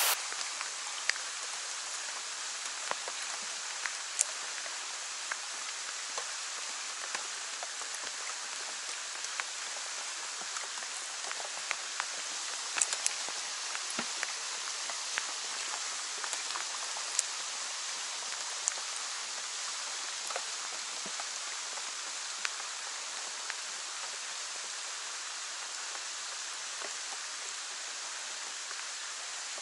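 Rain falling on the water: a steady even hiss scattered with sharp ticks of single drops.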